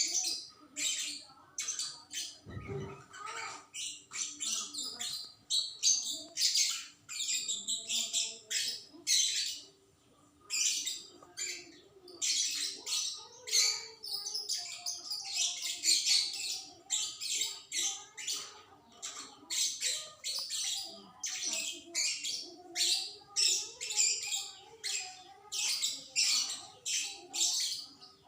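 A young songbird, about two and a half months old, singing a fairly long, nearly unbroken run of quick high chirps and twitters, with a brief low thump about three seconds in.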